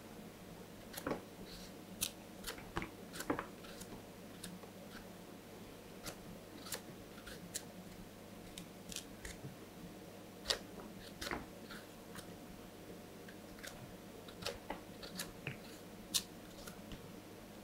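A kitchen knife slicing the skin off a raw yam held in the hand: a series of short, crisp cuts and scrapes at an irregular pace, over a faint steady hum.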